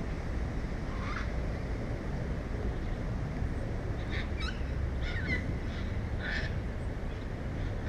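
Muscovy ducklings peeping: one short call about a second in, then a cluster of short rising peeps from about four to six and a half seconds in, over a steady low rumble.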